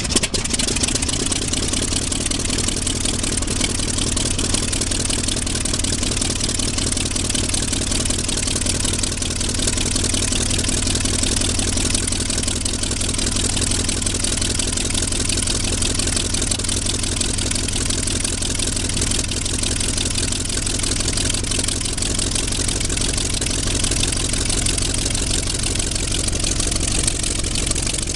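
Warbird aircraft piston engine catching at the very start and then running steadily at idle, propeller turning, heard close by from the cockpit with a strong rush of propeller air.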